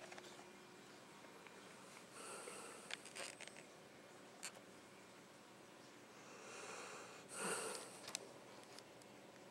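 A sleeping dog snoring softly: two noisy breaths about four seconds apart, the second longer and louder, with a few small clicks among them.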